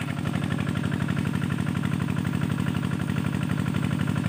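An engine running steadily at an even idle, with a fast, regular pulsing beat.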